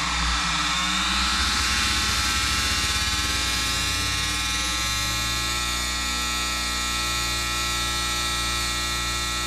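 Synthesized science-fiction sound effect: a loud electronic buzz made of many stacked tones. Its pitches sweep during the first couple of seconds, then it holds steady.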